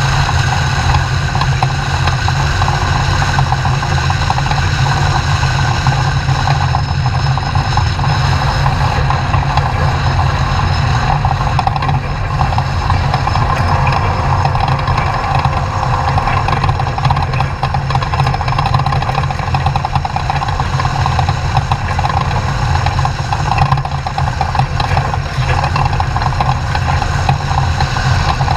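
Off-road desert race truck's engine running steadily under way, with no big revs up or down, heard together with constant driving noise.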